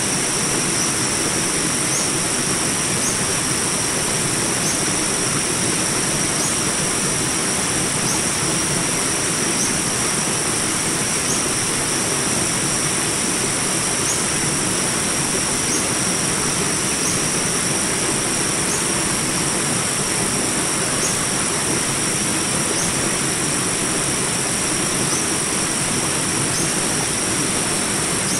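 Small jungle rapids, water rushing steadily, with a constant high drone over it and a short high chirp repeating every second or two.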